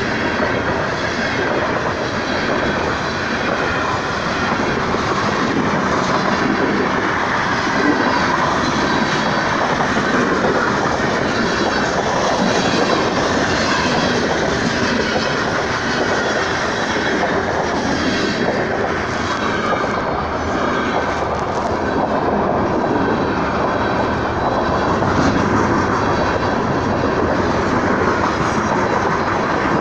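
Freight train passing at close range: the steady noise of its cars' steel wheels running over the rails, with hopper, box and tank cars going by.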